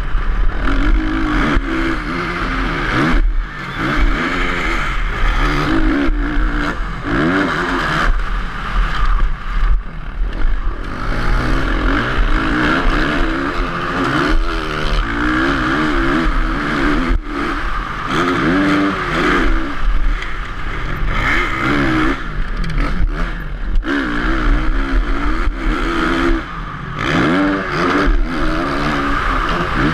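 Motocross bike engine heard from the rider's onboard camera, revving up and dropping off again and again as the rider accelerates, shifts and brakes, with a few sharp knocks from the bike hitting bumps.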